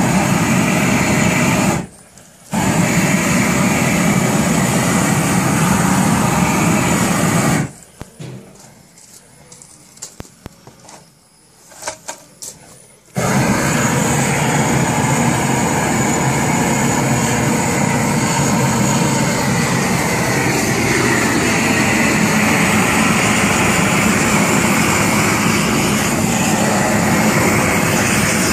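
Propane burner torch flame burning with a steady loud rush as it chars the surface of timber posts. It stops briefly about two seconds in, and again for several seconds in the middle, where only a few faint knocks are heard.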